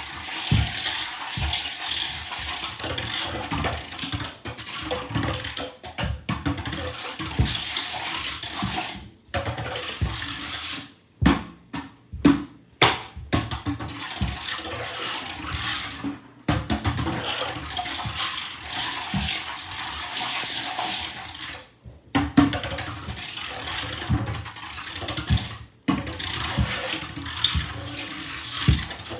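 Something spinning with a rattling, clicking whir, stopping short and starting again several times.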